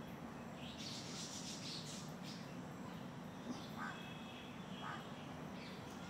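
Steady low hum of a giant rock bee (Apis dorsata) colony massed on its hanging comb, with birds calling over it: high chirping about a second in and a couple of short calls about four and five seconds in.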